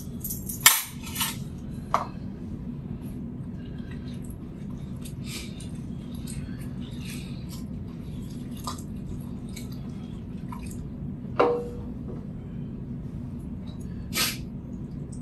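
A metal spoon stirring soup in a stainless steel stockpot, with scattered clinks and knocks against the pot. The loudest knocks come about a second in and again near the end, one with a short ring. A steady low hum runs underneath.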